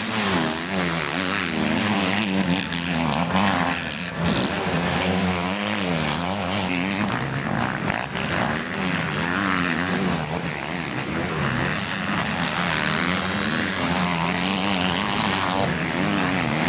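Motocross bike engines revving hard on the track, several at once, their pitch repeatedly rising and falling as the riders open and shut the throttle through the corners.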